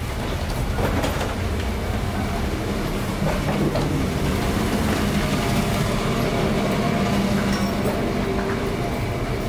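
Steady low rumble and hum inside an airport jet bridge, with faint knocks and footsteps of passengers walking off the plane.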